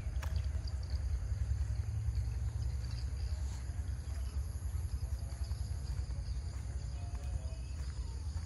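A steady, high-pitched insect drone with a few faint bird chirps, over a continuous low rumble.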